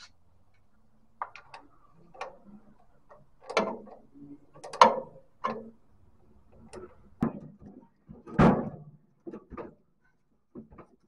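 A ratchet wrench clicking and metal clanking in separate short bursts as new battery cable terminals are tightened, with a heavier clunk about eight and a half seconds in.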